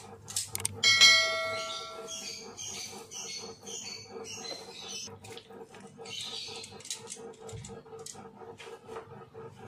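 A single metallic clang about a second in that rings and dies away over a second or so, followed by irregular light chirps and clicks over a steady low hum.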